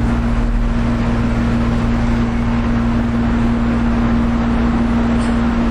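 A steady low rumble with one constant humming tone through it: the background hum of the room or the recording, with no one speaking.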